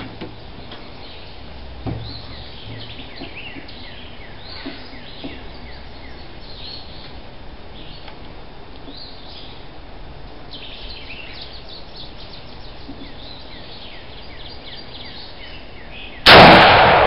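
Small birds chirping over quiet outdoor background, then near the end a single very loud shot from a Mosin-Nagant M44 bolt-action rifle in 7.62×54mmR, its echo trailing off slowly.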